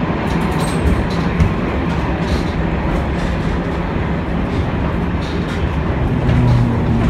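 M-24 museum tram running, heard from inside its wooden passenger cabin: a steady rumble of wheels on rails with scattered light clicks and rattles. A low hum grows stronger about six seconds in.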